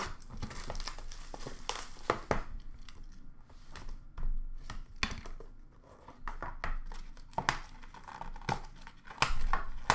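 Crinkling and tearing of packaging as a hobby box of trading cards is unwrapped and opened by hand, with irregular clicks and scrapes of cardboard being handled.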